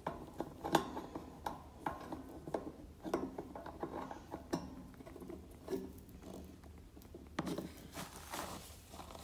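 A small plastic toy figure being moved by hand through paper bedding in a wire cage: irregular light clicks and taps with soft rustling.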